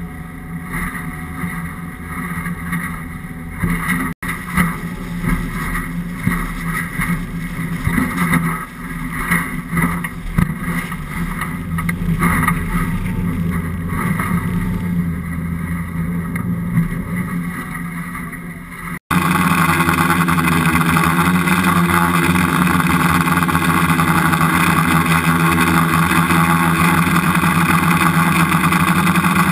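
Outboard engines of a Coast Guard 29-foot Response Boat-Small II running at speed, mixed with the rush of wind and water past the hull. After a cut a little past halfway, the sound becomes a louder, very steady engine drone.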